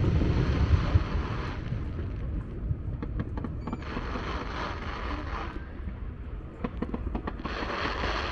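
Fireworks heard from a distance: a low rumbling boom in the first second, then scattered sharp pops and crackles over a hissing background.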